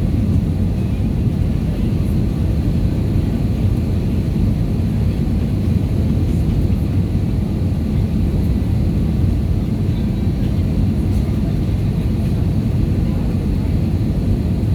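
Steady low rumble inside the cabin of an Airbus A320-214 in flight: its CFM56 turbofan engines and the airflow over the fuselage.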